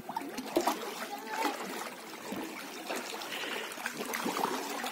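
Lake water lapping and trickling against a stone edge, with many small irregular splashes.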